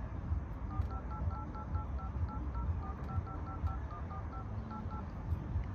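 Samsung phone's dialer keypad sounding touch tones (DTMF) as keys are tapped in quick succession: a fast string of short two-tone beeps, changing from key to key, starting about a second in and stopping near the end.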